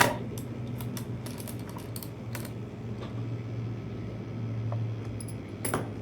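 Scattered light clicks and small metallic clinks of laptop parts, screws and a screwdriver being handled on a bench, with a sharp click at the very start and another near the end, over a steady low hum.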